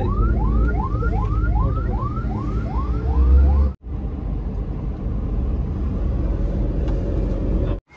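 Ambulance siren yelping in quick rising whoops, about three a second, over the steady low rumble of a moving vehicle. The siren stops a little after three seconds in, leaving only the road rumble.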